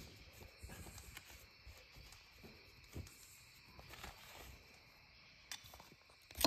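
Faint rubbing of a cloth shop rag wiped over an aluminium motorcycle engine case, with a few light knocks.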